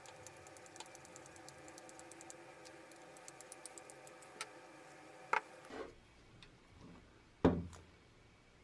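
Light clicks and ticks of the plastic motor housing and carbon brush holders of a Black & Decker electric drill being handled and fitted together, with a sharper click about five seconds in and a louder knock of plastic on the wooden bench a couple of seconds later.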